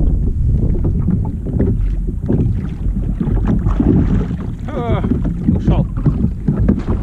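Wind buffeting the microphone over water slapping and splashing against a kayak's hull. A gloved hand plunges into the sea about four seconds in and splashes, and a short wavering squeak comes just after.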